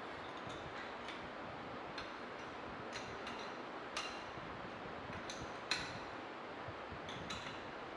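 Light metallic clicks and clinks of a spanner on the tie-rod nuts and top cap of a steel permeameter mould as the cap is tightened down: a dozen or so irregular ticks, the sharpest about four seconds in and just before six seconds, over a steady hiss.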